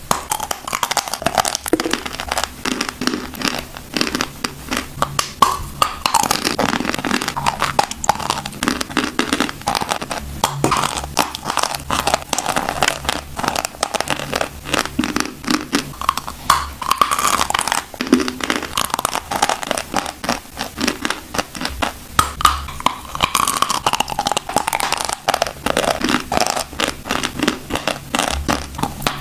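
Close-miked chewing of crunchy eating chalk: a continuous stream of crisp crunches and crackles as it breaks between the teeth.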